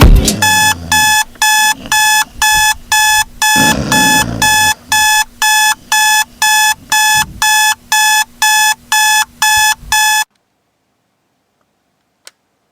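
Electronic alarm clock beeping, about two evenly spaced beeps a second, which cuts off suddenly about ten seconds in. A single faint click follows near the end.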